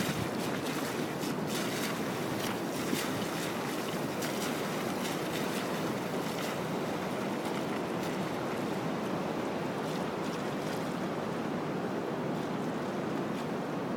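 Steady ocean surf washing on the beach, with wind on the microphone and a few faint crackles in the first half.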